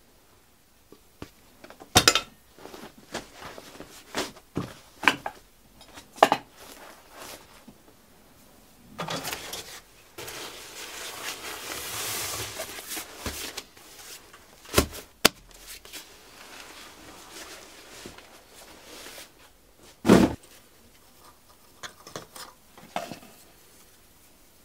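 Outdoor gear being handled and packed: scattered sharp metal clinks and knocks, with a longer rustle in the middle and the loudest knock about twenty seconds in.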